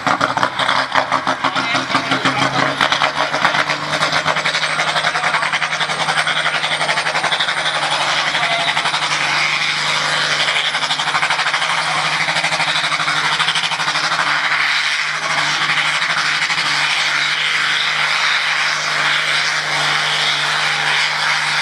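Farm tractor's engine running flat out under heavy load while it drags a weight-transfer pulling sled through mud. Loud and steady, with a fast rough pulsing in the first few seconds.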